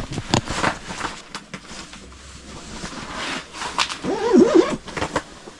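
An ice-fishing tent being set up on the ice: a series of sharp knocks and clicks with rustling, and a brief wavering voice-like sound about four seconds in.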